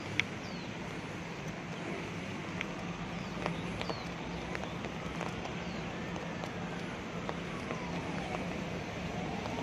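Steady rain on wet street paving, with scattered light taps. A faint ambulance siren wails slowly up and then down, starting to rise again near the end.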